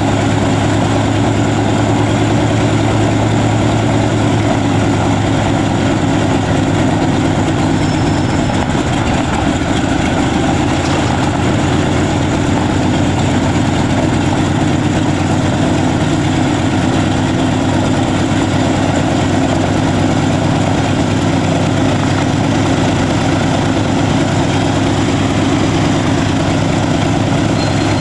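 Douglas A-26 Invader's Pratt & Whitney R-2800 radial engine running steadily at idle on the ground, propeller turning, with a deep even engine drone.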